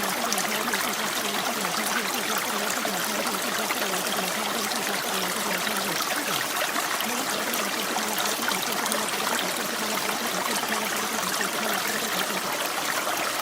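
Steady rain ambience: an even, unbroken hiss of falling rain.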